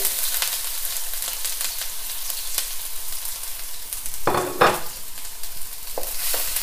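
Minced ginger and garlic sizzling in hot oil in a wok on high heat, a steady hiss with light ticks as it is stirred. A short pitched sound comes about four and a half seconds in.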